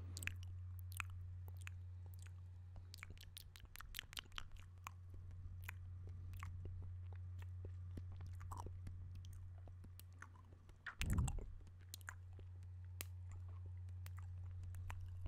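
Close-miked wet mouth sounds: many small, irregular lip and tongue clicks, smacks and sucking noises, with a louder low thump about eleven seconds in. A steady low hum runs underneath.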